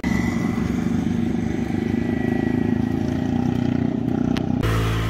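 A motor vehicle engine running steadily close by, with a thin high whine above it. Near the end the sound changes abruptly to a lower steady hum.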